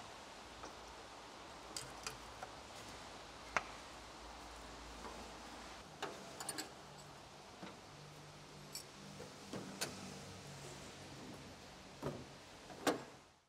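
Scattered light clicks and knocks of hand work at the engine: the funnel coming out and the oil filler cap going back on the rocker cover. They play over a faint steady hiss, with a louder knock just before the end.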